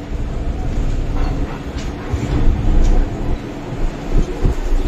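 Inside an MTR Island Line M-Train car pulling away from the platform: steady low rumble of the running gear, with a constant hum and a few light clicks from the wheels.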